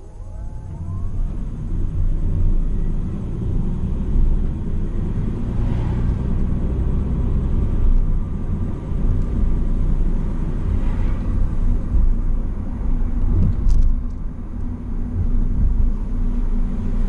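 Car driving noise heard inside the cabin: a low, steady rumble of engine and tyres that swells over the first couple of seconds as the car pulls away from a stop, then holds steady.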